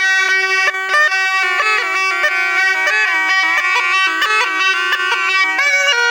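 A Jogi's murli, the gourd-bodied double reed pipe also called the been, playing a quick, ornamented melody over a steady unbroken drone.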